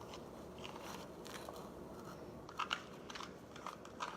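Homemade glue slime being mixed and squished in a bowl: faint irregular sticky crackles and small pops, with a few louder ones about two and a half seconds in.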